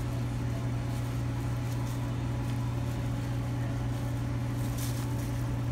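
Steady low machine hum of a refrigerated sandwich prep counter, unchanging, with a faint brief rustle of gloved hands on deli meat and paper about five seconds in.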